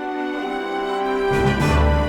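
Instrumental music: sustained held chords, then a fuller, louder passage with deep bass notes coming in about a second in.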